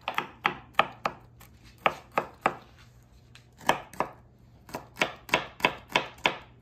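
Kitchen knife mincing garlic cloves on a plastic cutting board: an uneven run of sharp taps, about three a second, with a pause of about a second near the middle.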